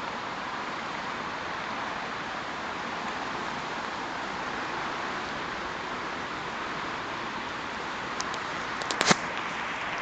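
Steady hiss of light drizzle falling outdoors. A few sharp clicks come near the end, the loudest about nine seconds in.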